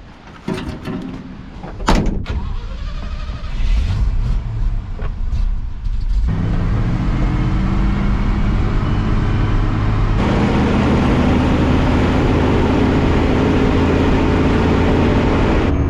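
A vehicle door knocks and slams shut, then a grain truck's engine runs steadily, getting louder in two sudden steps about six and ten seconds in.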